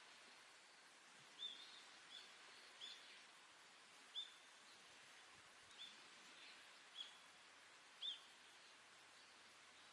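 A bird gives about seven short, high chirps at irregular intervals, faint over a steady outdoor hiss.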